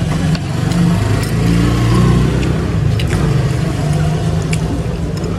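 A motor vehicle engine running close by, a steady low hum, with a few light clinks of a spoon and fork against a plate.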